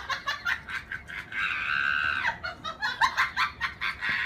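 Small dog giving a rapid string of short, high-pitched squeaky yelps, with one longer held squeal about a second and a half in.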